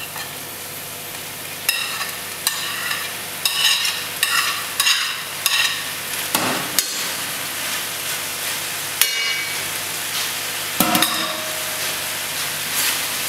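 Chicken and stir-fry vegetables sizzling in a very hot frying pan as the vegetables are scraped in off a ceramic plate, with a run of sharp, ringing clicks and scrapes from a utensil on the plate and pan in the first half, then a couple of single knocks.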